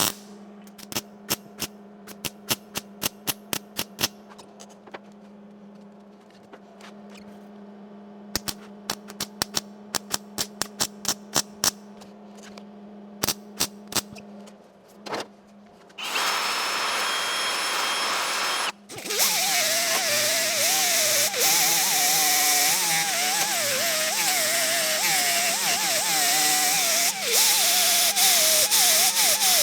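Runs of sharp metallic clicks and knocks over a steady low hum, then about halfway through a loud power tool, most likely an angle grinder on the welded sheet-steel door, running with its pitch wavering under load.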